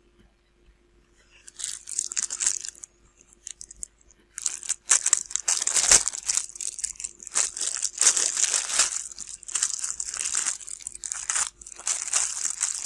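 Scratchy rustling and scraping of small plastic model parts being worked by hand, in uneven bursts starting about a second and a half in, with a sharp click about six seconds in.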